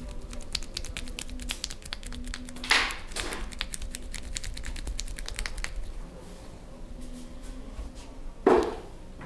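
Rapid light clicks or taps, about seven a second, for the first five or six seconds, with two short, louder bursts of noise about three seconds and eight and a half seconds in.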